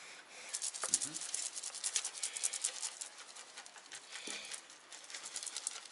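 Quick scratchy rattling and rubbing from hands working food with kitchen utensils, in two spells with a short lull between.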